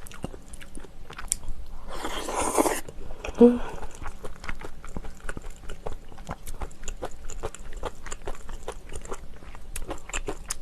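Close-miked chewing of food, with many small sharp wet clicks of biting and crunching. A brief rushing noise comes about two seconds in, followed by a short hum of the mouth.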